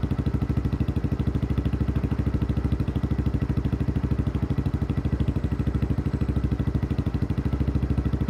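Honda MSX125 Grom's single-cylinder four-stroke engine idling through a Scorpion slip-on exhaust, a steady, even beat of about a dozen exhaust pulses a second with no revving.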